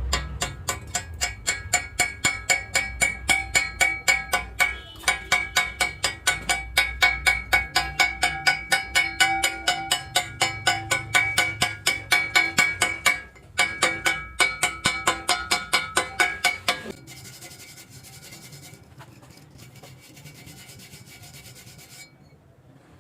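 Steel ringing under rapid repeated hammer strikes, about four a second with a couple of short breaks, typical of knocking slag off a fresh weld on reinforcing iron. About 17 seconds in the strikes stop and a softer steady hiss runs for about five seconds.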